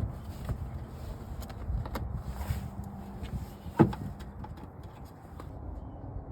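Taillight assembly of a Jeep Cherokee being handled and refitted: a few scattered knocks and clicks, one sharper knock about four seconds in, over a low background rumble.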